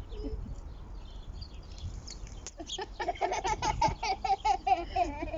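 A small child giggling in a rapid run of short, pitched pulses through the second half, with small birds chirping faintly before it.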